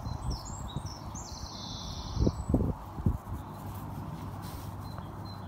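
Birds chirping faintly at a high pitch, with three or four dull low thumps about two to three seconds in that are the loudest sounds.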